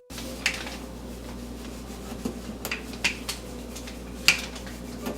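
Rolling pin rolling out folded paratha dough on a board: soft rubbing with a handful of light clicks and knocks, over a steady low hum.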